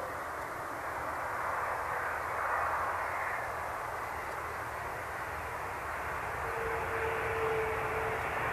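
Boeing 767-300 airliner's jet engines during its landing: a steady rushing roar that grows slowly louder. A steady whine joins in about six and a half seconds in.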